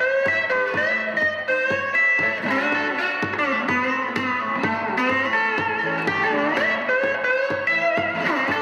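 Theme music led by electric guitar, with notes that bend in pitch over a steady beat.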